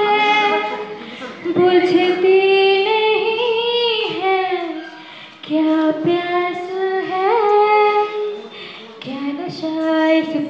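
Two women singing a song into microphones, long held notes that waver and bend, phrase after phrase with short breaths between.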